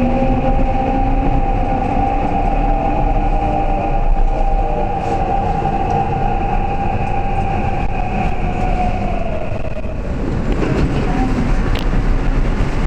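Seoul Subway Line 6 train heard from inside the car: steady rumble of the wheels and running gear with a whine from the electric motors that slides down in pitch and dies away about ten seconds in, as the train slows into the station.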